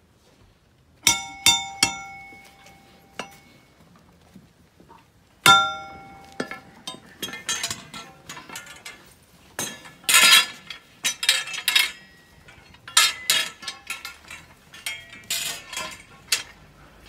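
Struck metal ringing out: three quick knocks about a second in, then one louder knock a few seconds later. After that come irregular clinking and rattling.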